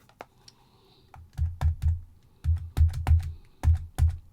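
Repeated dull tapping, about three taps a second from about a second in: a photopolymer stamp being pounced onto an ink pad to ink it.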